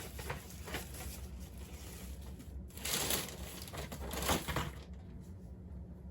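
Packaged diecast cars being handled: light clicks, then two louder bursts of rustling and crinkling packaging about three seconds in and again near four and a half seconds.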